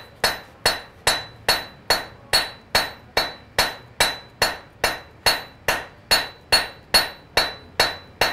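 Blacksmith's hammer striking a red-hot iron bar on an anvil in a steady rhythm, about two and a half blows a second, each blow ringing briefly. The smith is squaring up round stock by hammering.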